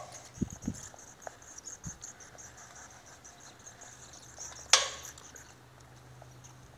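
Roosting bats chittering in a rapid run of high-pitched squeaks. A single sharp click sounds a little after the middle and is the loudest thing heard. There are a few low thumps in the first two seconds.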